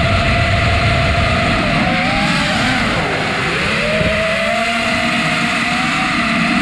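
Drone motors and propellers whining steadily. The pitch dips about two and a half seconds in and climbs back by about four seconds as the drone changes its thrust, over a low rush of wind on the microphone.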